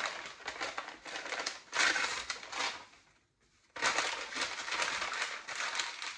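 Plastic wrapping being crinkled and pulled off a soft-wrapped book: two stretches of crackling rustle with a short pause about three seconds in.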